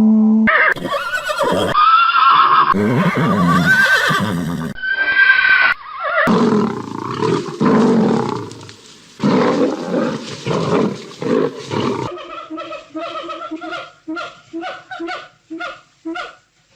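A string of different animal calls cut one after another: loud cries and long calls that change abruptly from clip to clip. From about twelve seconds in comes a series of short, evenly repeated calls, roughly two a second.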